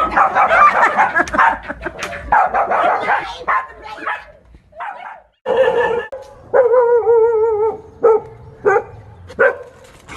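Dogs barking excitedly in alarm at a stuffed toy tiger. The barks come in a rapid dense string at first, then as separate sharp barks about every half second to second, with a long wavering held note in the middle.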